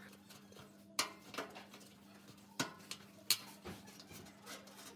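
About seven sharp metallic clicks and taps, spread unevenly, as a metal tool works at the rusty clips holding a wire fan grille to its steel drum. A faint steady hum runs underneath.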